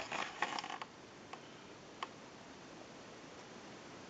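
Light handling clicks and knocks from a Northern Electric rotary desk telephone as it is turned over and held up by hand, mostly in the first second, then two single clicks about a second apart before a low steady hiss.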